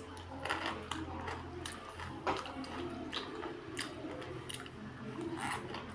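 A person eating noodles close to the microphone: irregular wet slurps, smacks and chewing.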